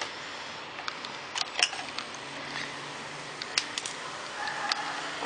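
Small hard plastic toys knocking and clicking together as they are handled: a handful of separate sharp clicks, the loudest about one and a half seconds in.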